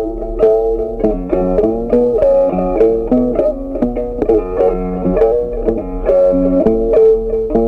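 Instrumental background music: a melody of quick plucked-string notes over a steady low hum.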